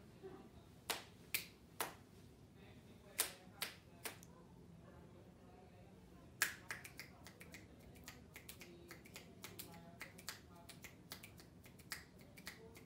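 Finger snapping tapping out the rhythm of a song for the listener to recognise. The first few seconds hold two groups of three crisp snaps about half a second apart. From about six seconds in, a faster, quieter run of many snaps follows.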